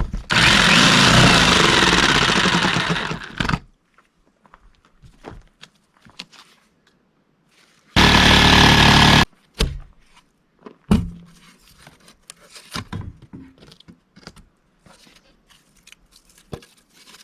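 A handheld power tool runs in two bursts, about three seconds near the start and about a second and a half some eight seconds in, with scattered knocks and clatter of work on the frame between them.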